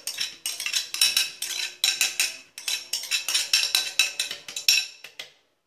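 A spoon rapidly scraping and tapping against a ceramic bowl, many quick clinks in a row, as thick flaxseed gel is scraped out of it. The scraping stops shortly before the end.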